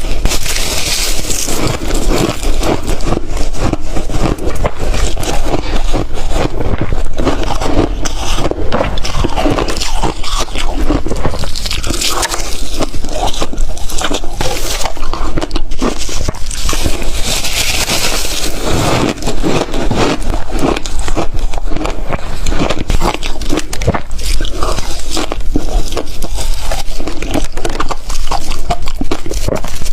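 Ice being bitten and chewed, giving loud, dense crunching and crackling that goes on without a break.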